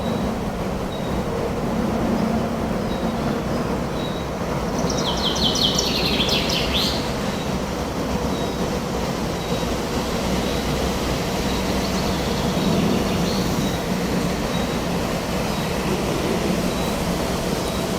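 Steady wind noise through a forest, with a songbird giving one quick series of rapid high notes about five seconds in, lasting about two seconds.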